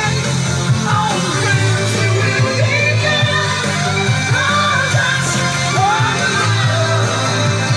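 Pop-rock song playing, with a singer's vocal over a band with bass and guitar.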